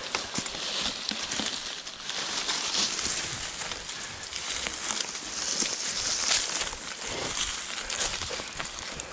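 Dry fallen leaves crackling and rustling as they are crushed on the forest floor, a continuous crunch full of small irregular clicks.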